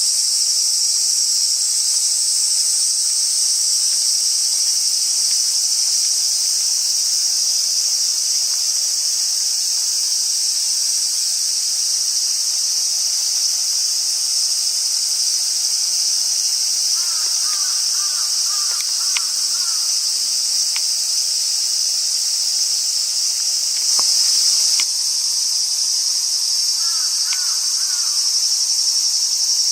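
A steady, high-pitched chorus of insects, crickets among them, trilling without a break, with a few faint short chirps partway through and near the end.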